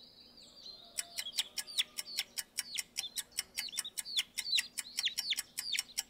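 Chicks peeping rapidly: a run of high, short peeps that slide down in pitch, about six a second, starting about a second in after a few fainter ones.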